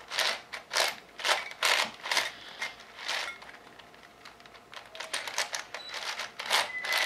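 Plastic layers of a pink ShengShou speedcube being turned by hand: a run of sharp clacks, about two a second, that dies down for a second or so in the middle and then picks up again.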